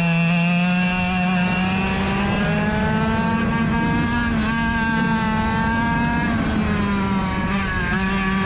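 Rotax DSB two-stroke kart engine running hard at racing speed. Its pitch climbs steadily, wavers, then falls briefly about seven seconds in before climbing again near the end, as the throttle comes off and back on.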